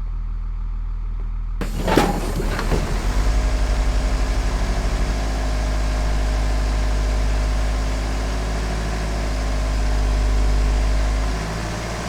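Car engine cranking with a fast pulsing for about two seconds after a sharp knock, then catching and running steadily.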